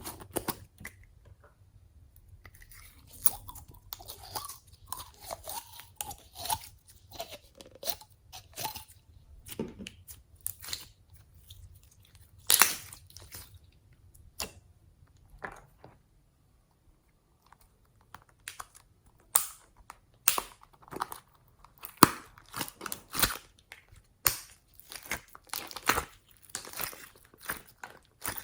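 Glossy slime with floam beads being kneaded and squeezed by hand, giving irregular crunches and crackling pops. About 3 to 9 seconds in there are wetter squelching sounds, and the crackling comes thick and fast again in the last third.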